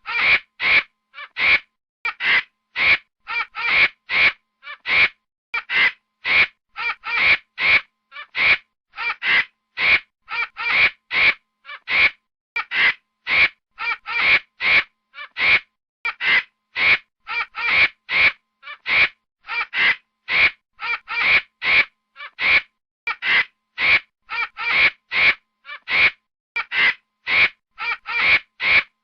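Angry baboon calls: short calls repeated about twice a second, each one separate with clean silence between them.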